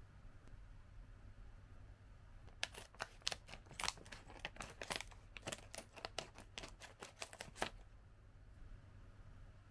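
Scissors cutting across the top of a foil snack bag, with the bag crinkling: a run of sharp, crisp snips and crackles that starts about two and a half seconds in and lasts about five seconds.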